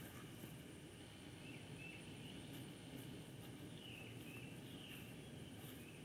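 Faint outdoor ambience: a steady low hiss with a few short bird chirps, most of them in the second half.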